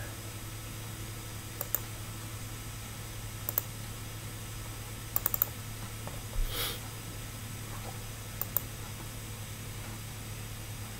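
A few scattered computer mouse clicks, some in quick pairs or threes, over a steady low electrical hum, with one brief soft noise about six and a half seconds in.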